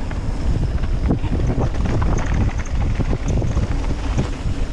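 Wind buffeting a GoPro microphone as a mountain bike rides down a dirt jump line, with tyre noise and frequent short knocks and rattles from the bike over the rough trail.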